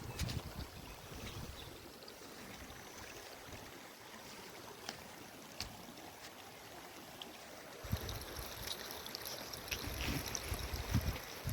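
Rain falling with a steady hiss of water and scattered sharp drip ticks. Wind buffets the microphone near the start and again from about two-thirds of the way through, when the hiss grows brighter.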